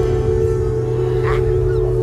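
Live amplified band music: a chord held and ringing steadily, with faint voices in the room.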